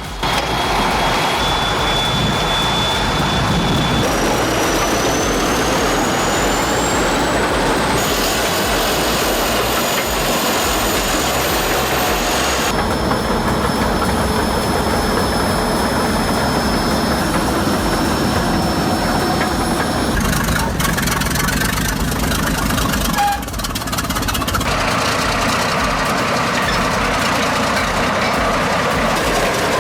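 Heavy diesel engines of earthmoving machines running loudly and steadily, the sound changing abruptly every few seconds where short clips are cut together.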